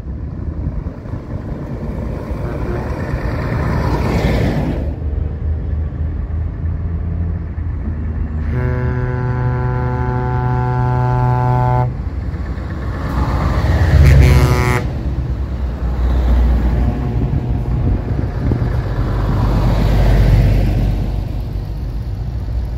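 Heavy trucks driving past, their engine and tyre noise swelling as each one nears. About nine seconds in, a truck's air horn sounds one long steady blast of about three seconds. A short second blast follows about two seconds later.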